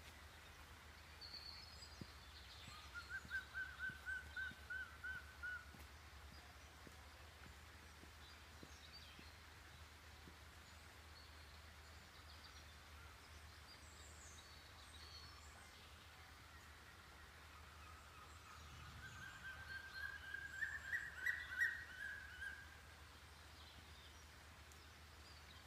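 Quiet outdoor ambience with a steady low hum, broken twice by an animal calling in a rapid run of repeated notes. Each run lasts about three seconds, and the second rises a little in pitch before falling. Faint high bird chirps come in between.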